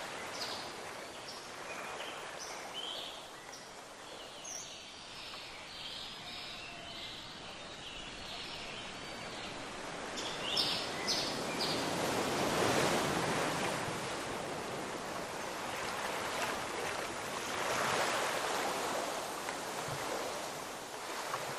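Ocean surf washing ashore in slow swells, two of them loudest in the second half. Many short, high bird chirps are heard over the surf during the first half.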